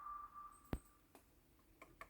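Near silence, with a short fading tone at the start and a single faint click about three quarters of a second in, then a couple of faint ticks near the end.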